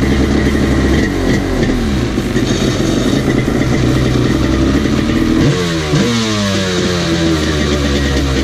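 Jet ski engine running while a hose flushes fresh water through it to rinse out the salt, with the revs rising about six seconds in and then falling back.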